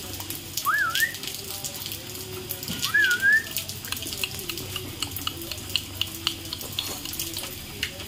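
Rain falling steadily, with many small drops ticking and dripping on a wire cage. Two short wavy rising whistles sound over it, about a second in and about three seconds in.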